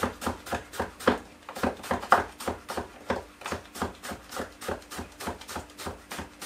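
Kitchen knife chopping cucumber on a wooden chopping board: quick, even knocks, about four a second.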